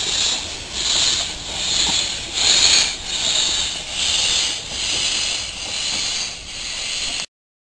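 Double Fairlie steam locomotive Merddin Emrys moving slowly, its cylinders giving rhythmic hissing steam chuffs about three every two seconds. The sound cuts off abruptly near the end.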